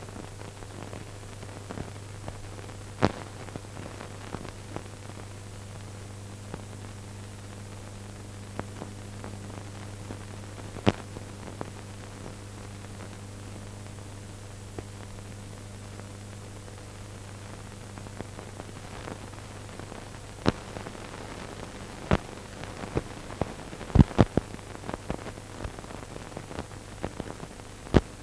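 Steady hiss and a low mains-type hum with scattered sharp clicks and pops, the surface noise of an old film soundtrack; the clicks come thicker and louder near the end.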